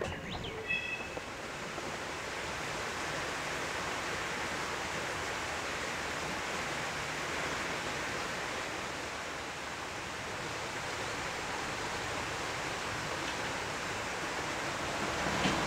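Steady, even rushing outdoor noise with no distinct events, with a few short high tones in the first second.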